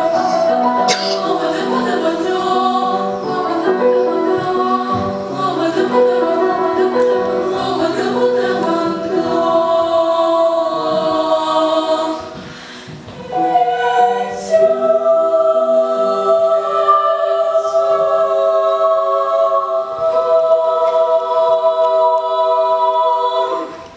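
Girls' vocal ensemble singing a song in several-part harmony. There is a brief pause about halfway, followed by a long held final chord that fades out near the end.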